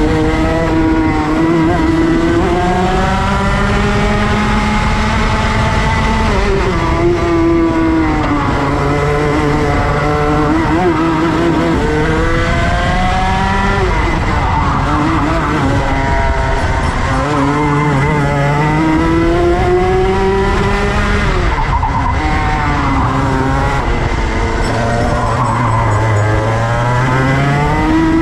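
Go-kart engine heard from the driver's seat during a lap, its pitch repeatedly climbing for a few seconds then dropping as the kart accelerates out of corners and lifts off into the next.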